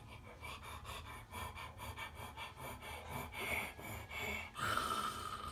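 A man breathing quickly and gasping in short strokes, with a longer drawn-out breathy sound near the end.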